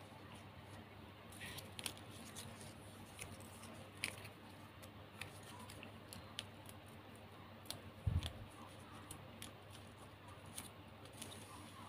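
Faint crackles and clicks of shiny plastic gift ribbon being handled, woven and folded by hand, with a dull bump about eight seconds in.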